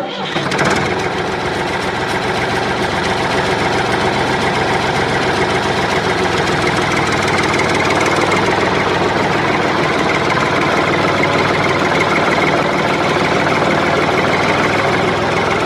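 A small motor running steadily and without a break.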